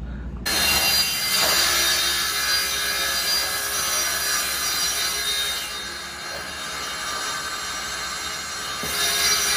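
Vertical panel saw cutting a sheet of plywood: the circular blade's high-pitched whine over the steady noise of the cut. It eases a little past the middle and rises again near the end.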